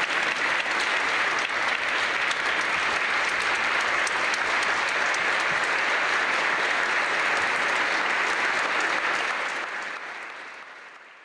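An audience applauding steadily, the clapping fading away over the last two seconds.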